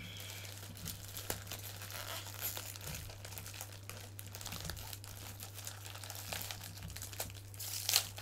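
Plastic wrapping around action figures being handled and pulled at, rustling with many small crackles, louder near the end, over a steady low hum.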